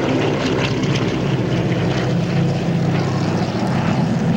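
T-6 Texan trainers' Pratt & Whitney R-1340 radial engines and propellers running steadily as the planes fly past.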